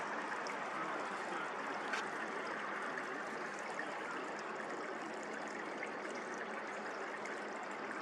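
Steady hiss of flowing creek water, with a faint click about two seconds in.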